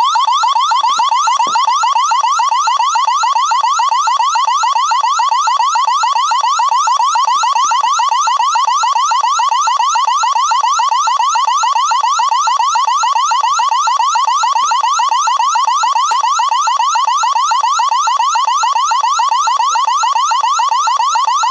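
Wyze Cam v3 security camera's built-in siren sounding: a loud electronic alarm of rapid, evenly repeated rising sweeps, steady throughout.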